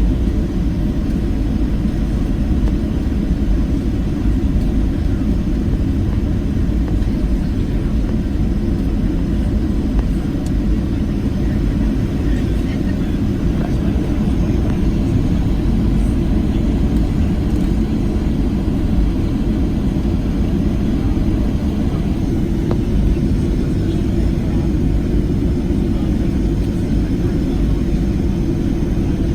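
Steady low rumble of engine and airflow noise heard inside the cabin of a Boeing 737-700, with its CFM56-7B jet engines running at a constant setting.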